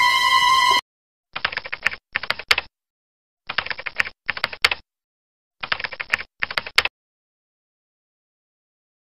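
Computer-keyboard typing sound effect: three pairs of short bursts of rapid key clicks, each pair lasting about a second and a half. Before them, a loud steady tone with a hiss cuts off abruptly just under a second in.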